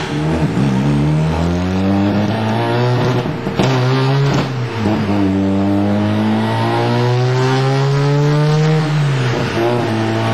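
Mazda RX-7's rotary engine running hard on a chassis dyno: its pitch climbs steadily, drops sharply twice near the middle with gear changes, then climbs for several seconds more before falling back near the end.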